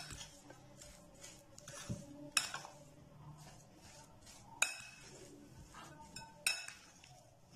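A spoon stirring a thick mashed-potato and vegetable mixture in a glass bowl: a soft scraping broken by a few sharp clinks of the spoon against the glass that ring briefly.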